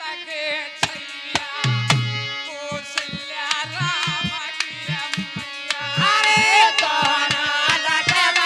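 Harmonium holding chords while a dholak plays a rhythm of deep bass strokes and sharp slaps, an instrumental interlude of a rustic Hindi devotional song. About six seconds in, a louder wavering, sliding melody joins in.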